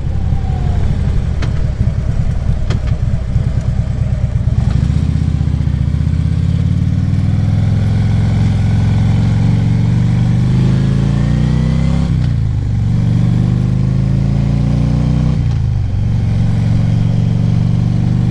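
Harley-Davidson Ultra Classic Limited V-twin engine heard from the rider's helmet. It runs at a low, loping rumble for a few seconds, then pulls away and climbs in pitch as the bike accelerates. The pitch drops sharply twice, about twelve and sixteen seconds in, as the rider shifts up a gear each time.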